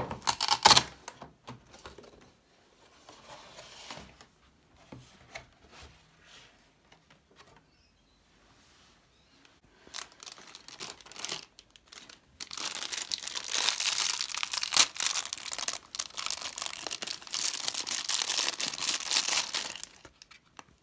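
Hands handling and tearing open a small sealed plastic collectible packet: scattered rustles and taps at first, then, a little past halfway, several seconds of continuous crinkling and tearing of the wrapper.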